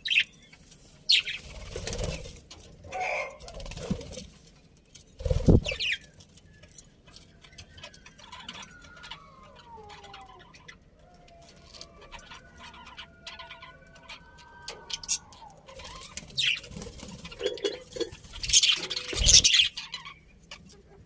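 Budgerigars chirping and moving about, with wing flaps and a few sudden knocks, the loudest about five seconds in and near the end. In the middle comes a soft warble of gliding notes.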